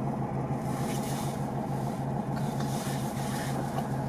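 Volkswagen 411 prototype's engine idling with a steady hum, heard from inside the car. Over it come two soft hissing sounds, each about a second long, from a foal licking and nosing the car's bonnet.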